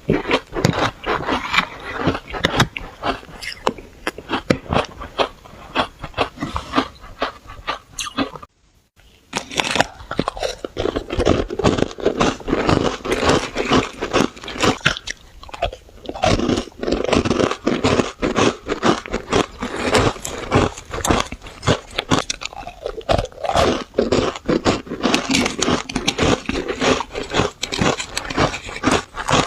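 Close-up crunching and chewing of powdery shaved ice, a rapid run of crisp crunches, with a brief pause about eight seconds in.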